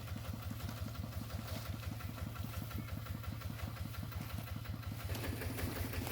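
Small engine running with an even chugging beat, speeding up about five seconds in.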